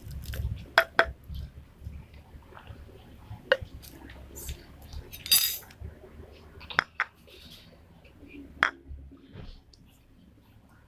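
Irregular clinks and taps of a utensil and plastic or glass containers being handled while slime ingredients are prepared, with a brief hissy scrape about five seconds in.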